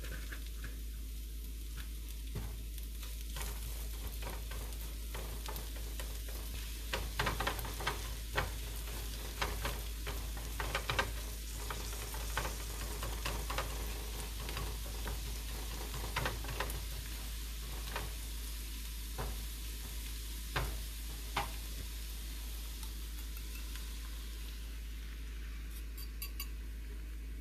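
Spinach sizzling as it wilts in a hot frying pan, with a steady hiss, while a spatula stirs and scrapes it against the pan in repeated short strokes, most of them through the middle stretch.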